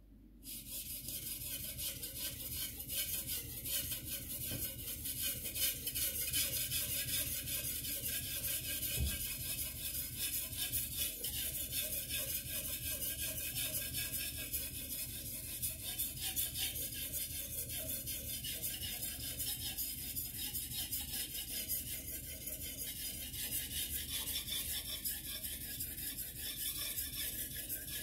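Carbon-steel Shirogami #2 gyuto blade stroked back and forth on a wet Japanese whetstone: a steady run of gritty scraping strokes that starts about half a second in.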